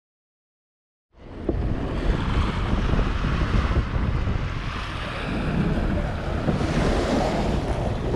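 Sea water sloshing and rushing close to the microphone, with wind buffeting it in a steady low rumble; it begins about a second in after silence.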